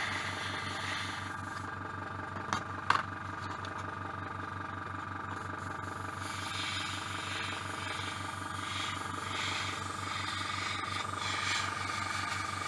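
Small airbrush compressor running with a steady, rapidly pulsing hum. The airbrush gives short hisses of spraying in the second half, and two sharp clicks come about three seconds in.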